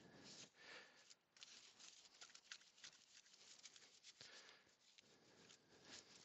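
Faint scrubbing of a soft-bristled Vikan wheel brush against a wet alloy wheel's spokes and face: a string of short scratchy strokes and small ticks, with a brief pause about a second in.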